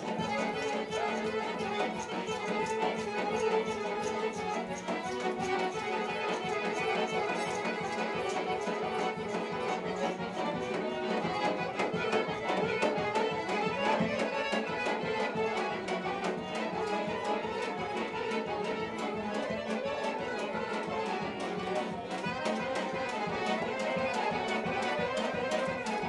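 Violins playing lively Romani (Gypsy) folk dance music with a steady, quick beat.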